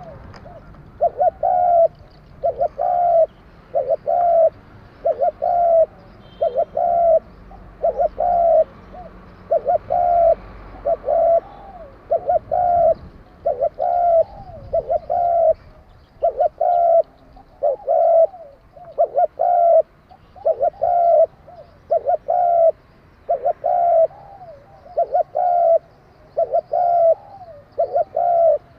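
Spotted dove cooing over and over, with the voice Vietnamese dove keepers call 'đồng kim': short phrases of a few notes, repeated about every one to two seconds.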